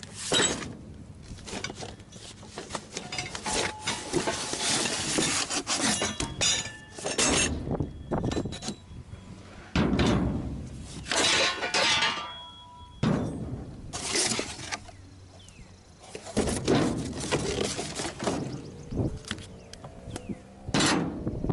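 Cardboard shipping box and packaging being handled and pulled open, with repeated knocks, clinks and clatters of the aerator's boxed steel parts, over gusts of wind on the microphone.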